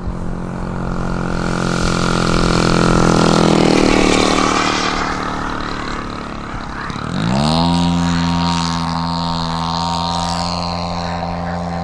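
Twin-cylinder 100cc gas engine of a giant-scale RC Super Decathlon running at low throttle and growing louder as the plane comes near. About seven seconds in it revs up sharply to full throttle and holds a steady high pitch as the plane climbs out.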